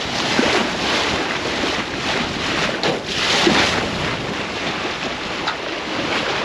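Sailboat hull pushing through choppy sea under sail: water rushing and splashing along the side as the bow wave breaks, with wind buffeting the microphone. The rush swells louder about half a second in and again around three seconds in.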